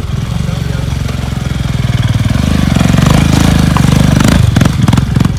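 Motorcycle engine revving hard under load on a dirt trail, getting louder over the first three seconds, with uneven throttle near the end.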